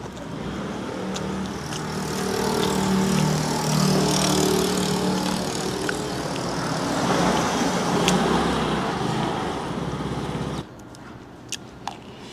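Motor scooter engine running close by, then shutting off suddenly near the end.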